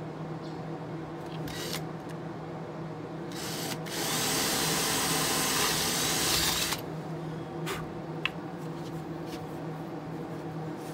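Kobalt cordless drill drilling a hole into the boat's console. It gives two short spurts, then runs steadily for about three seconds and stops suddenly, followed by a few light clicks.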